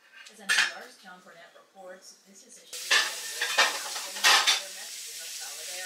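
Pancake batter sizzling in a frying pan while a spatula scrapes and knocks against the pan several times; the steady sizzle comes in suddenly a little under three seconds in.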